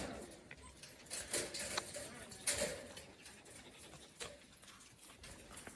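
A Shiba Inu eating a piece of fish it has just been given: a scattering of short chewing and mouth noises.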